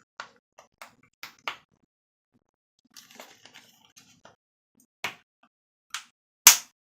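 Plastic Hot Wheels Track Builder track pieces clicking and clacking as they are pushed and snapped together by hand. A few light clicks, a scratchy rustle about three seconds in, then sharper clacks near the end, the last the loudest.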